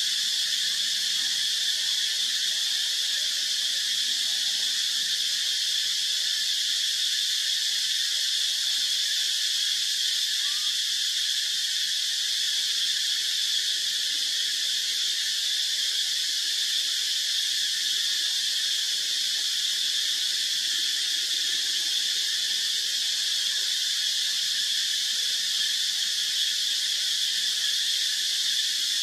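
A steady, high-pitched insect chorus, even in level and without a break.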